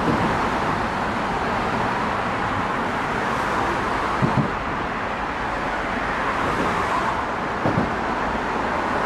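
Steady rush of road traffic heard from under a bridge, cars passing continuously. Twice, about four seconds in and again near the end, a quick double thump stands out as the loudest sound.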